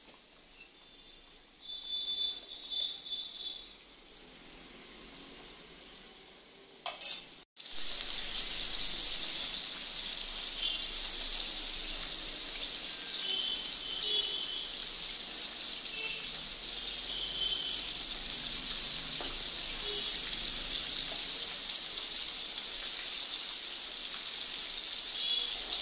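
Chicken wings deep-frying in hot oil: a steady hissing sizzle that starts abruptly about seven and a half seconds in. Before it, a quieter stretch with a few short clinks.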